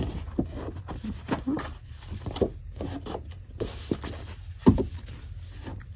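Large sheets of patterned scrapbook paper rustling and flapping as they are lifted and shuffled by hand: a string of short crinkles and taps, with one louder snap about three-quarters through, over a low steady hum.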